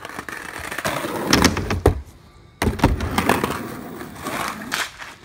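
Skateboard wheels rolling on a concrete driveway, a growing rumble broken by several sharp clacks of the board. It drops out briefly about halfway, starts again abruptly with more clacks, then fades.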